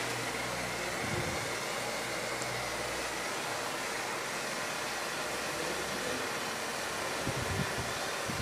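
Handheld propane torch burning with a steady hiss as its flame is played over heat-shrink tubing on a cable lead to shrink it.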